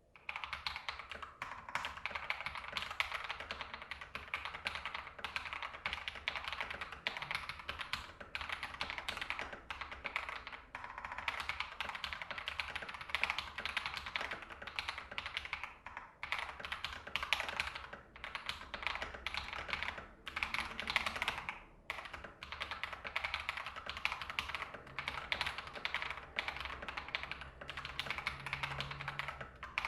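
Mechanical keyboard typing test: fast, continuous typing on a Nimbleback NB681 65% hotswap board fitted with lubed Akko Ocean Blue tactile switches, lubed holee-modded stabilizers, a PE foam mod and a tape mod on the PCB. There are brief pauses in the keystrokes a few times.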